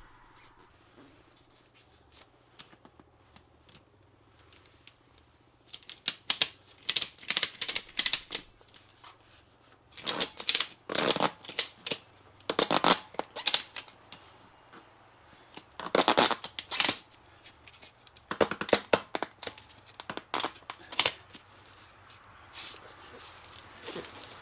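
A strap being cranked tight around a motorcycle tire's tread to squeeze the beads out toward the rim: several bursts of rapid clicking, with quiet pauses between them.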